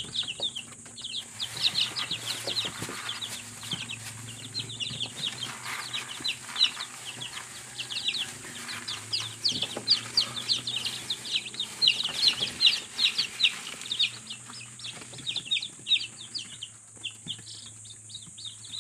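A brood of newly hatched chicks peeping continuously: many high, short, falling peeps overlapping in a constant chorus.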